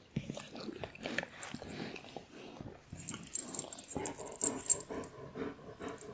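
A dog making a rapid run of short, irregular noises that start suddenly, with sharp high ticks through the middle.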